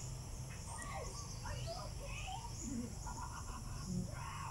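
Outdoor insects, crickets or similar, droning steadily at a high pitch, with scattered short bird chirps over them.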